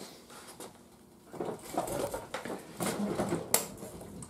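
Hand tools clinking and rattling on a workbench as a screwdriver is picked up, with a sharp click about three and a half seconds in.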